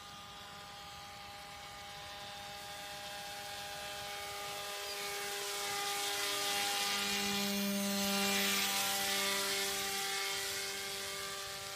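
Radio-controlled model paramotor's motor and propeller buzzing steadily in flight. It grows louder as the model flies in, is loudest as it passes closest about eight seconds in, then fades a little.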